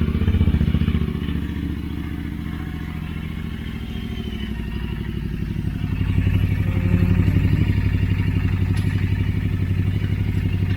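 Royal Enfield Interceptor 650's 648 cc parallel-twin engine idling through aftermarket Powerage stainless slip-on silencers, a loud, steady exhaust note. It runs with a small exhaust leak at a slip-on joint. The sound grows louder about halfway through.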